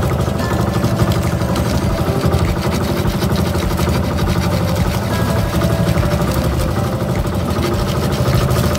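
A fishing boat's engine running steadily, with an even, unchanging drone.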